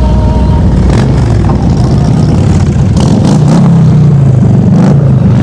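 Motorcycle engine running loudly close by, a low rumble that rises in pitch and grows louder about three seconds in.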